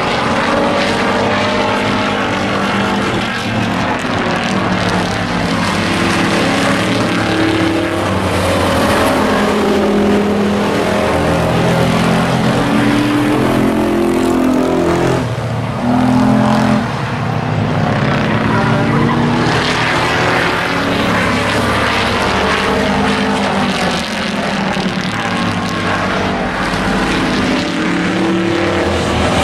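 Several racing pickup trucks' engines running hard around an oval track, their pitches rising and falling as they accelerate and lift for the turns. The sound swells loudest briefly about halfway through as the pack passes close.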